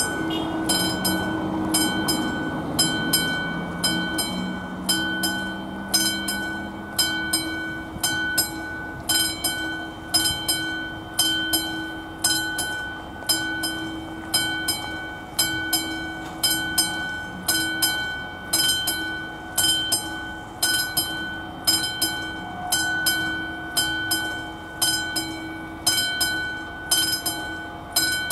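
A level-crossing warning bell, the classic mechanical bell of an AŽD 71 crossing signal, striking at about one stroke a second, each stroke ringing out before the next. It signals that the crossing is closed for an approaching train. For the first several seconds a low drone rising in pitch sits under it.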